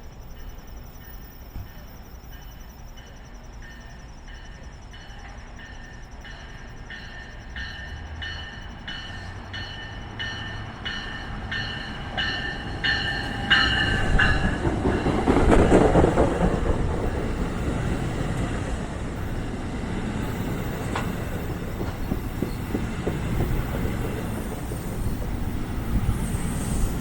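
NJ Transit train approaching with its bell ringing about twice a second, growing steadily louder. About halfway through it reaches the platform with a loud rush of engine and wheel noise. Steady wheel rumble follows as the cars roll past.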